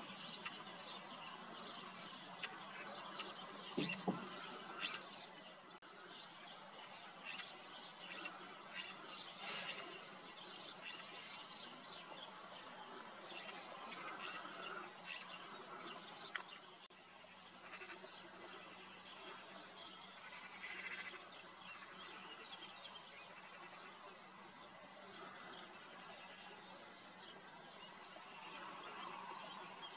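Background birdsong: many small birds chirping and calling, busiest in the first half and thinning out after about seventeen seconds.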